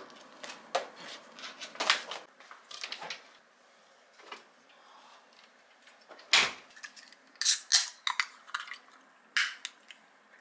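Sharp clicks, taps and rustles of things being handled, then a louder thud about six seconds in as a refrigerator door is pushed shut, followed by several more sharp clicks.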